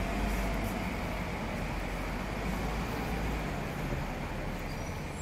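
Street traffic noise: a steady rumble of passing vehicles, heaviest at the start and easing after about three seconds.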